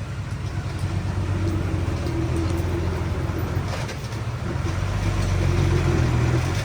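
Diesel engine of heavy earthmoving machinery running at a steady pitch, getting louder toward the end as if working harder or coming closer.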